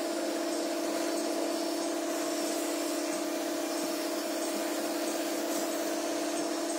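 A machine running steadily, giving a constant hum of one unchanging pitch over a background hiss.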